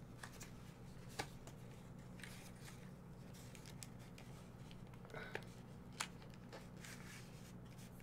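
Faint, scattered clicks and crinkles of a plastic trading-card blister pack being worked open by hand, over a low steady hum.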